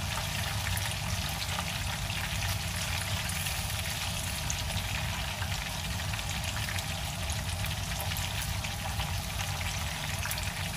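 Fish head frying in oil in a pan, a steady sizzle with small scattered crackles, over a steady low hum.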